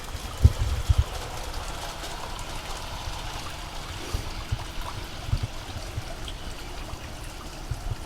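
Water trickling and running steadily in a garden pond's small stream, with a few short low thumps.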